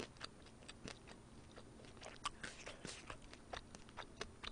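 A person chewing food close to a microphone: faint, irregular wet clicks and small crunches.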